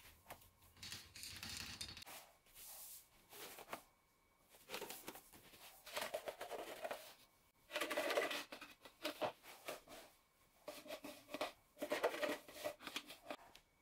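Faint, scattered handling noises of plastic tubs, lids and cans with some scraping, while powdered filler is tipped out and resin is mixed. The sounds come in short irregular bunches, busiest in the second half.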